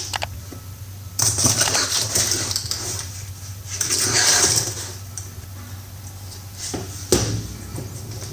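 Box and packaging of a TV wall-mount bracket being opened and handled: stretches of rustling and scraping, with a sharp knock about seven seconds in.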